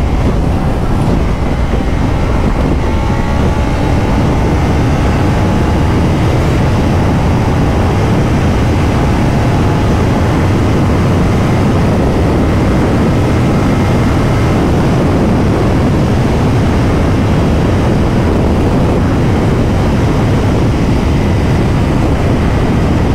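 Motorcycle riding at speed, with loud steady wind rush over the rider's microphone and the engine note faintly climbing in the first few seconds.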